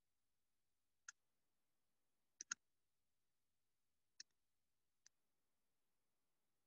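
Near silence broken by a few faint, very short clicks: one about a second in, two close together around two and a half seconds in, and two more between four and five seconds.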